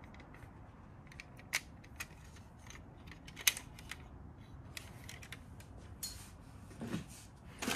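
Sparse small clicks and taps from die-cast toy cars being handled, a handful of sharp ones spread over a faint background.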